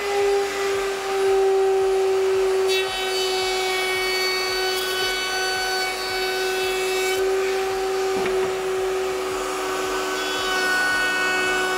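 Router table's router motor running at speed with a roundover bit, a steady high whine. The bit cuts a roundover along the edge of a wooden board in two passes, a harsher cutting sound over the whine from about three to seven seconds in and again near the end.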